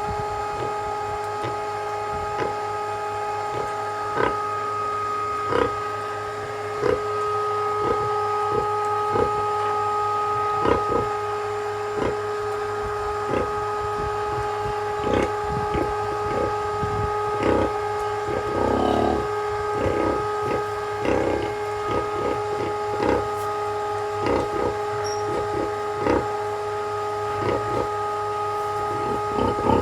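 Piglets eating: a run of short, irregular chewing smacks with an occasional grunt, one of them about two-thirds of the way in. A steady hum of several fixed tones runs underneath.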